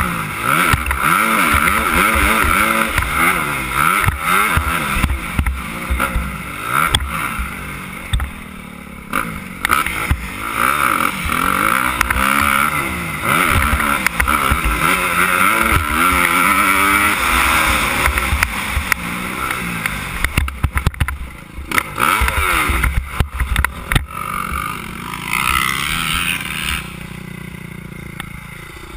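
Suzuki 250 motocross bike's engine revving hard and backing off again and again as it is ridden round a dirt track, heard from the rider's helmet camera. Near the end the revs drop away.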